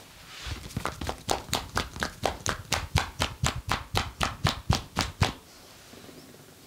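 Rapid, evenly paced hand strikes of a percussive massage on the body, about four to five a second, starting soft and quickly getting sharper and louder, then stopping suddenly.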